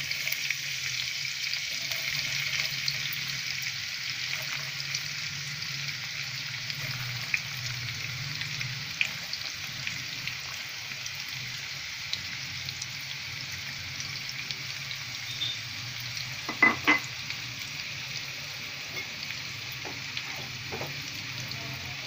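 Chopped small onions sizzling steadily in hot oil in a pan as they are stirred, with a few light clicks and two sharp knocks close together about seventeen seconds in.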